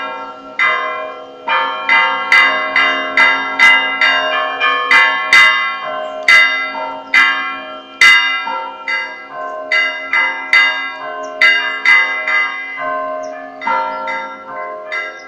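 Bronze church bells rung by hand in a repique: strokes of different pitch in a quick, uneven rhythm, two to three a second, each ringing on under the next. The strokes thin briefly near the end and then pick up again.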